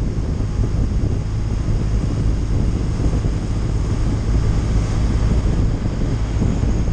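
Wind rushing over the microphone of a touring motorcycle at road speed, with the motorcycle's steady low engine drone underneath.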